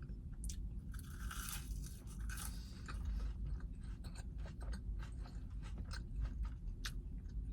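Close-up chewing of waffle fries: soft crunching and wet mouth clicks that come irregularly.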